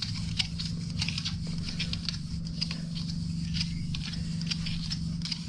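PTFE thread-seal tape pulled off its reel and wound onto the thread of a brass push-fit air connector: a quick, irregular run of small crackles and ticks as the thin tape stretches and unreels. A steady low hum runs underneath.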